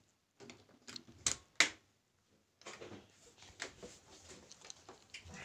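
Fingertips tapping a phone's touchscreen while typing a short message: a few sharp taps, the two loudest about a second and a half in, then after a brief pause a run of softer taps and light handling rustle.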